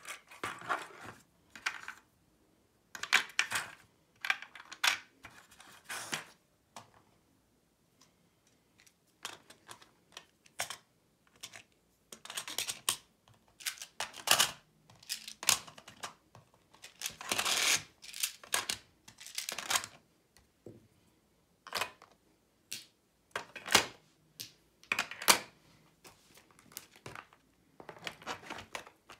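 Board game components being handled and set into a 3D-printed plastic box insert: irregular clicks, taps and short rustles, in clusters with brief pauses.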